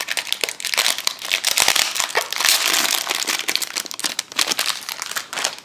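Foil wrapper of a Pokémon TCG booster pack crinkling continuously as it is handled and opened.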